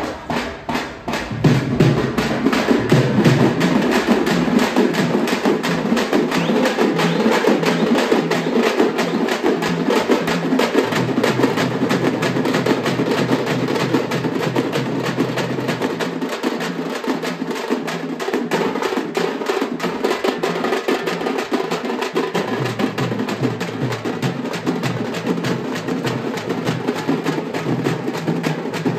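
A street procession drum band playing a fast, continuous beat on large double-headed drums struck with sticks, with smaller snare-type drums adding rapid strokes.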